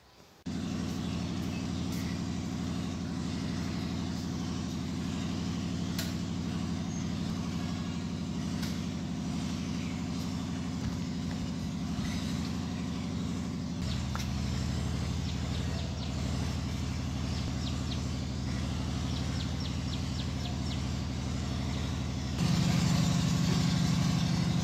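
Steady low engine hum. It shifts in tone a little past halfway and gets louder near the end, with a few faint clicks over it.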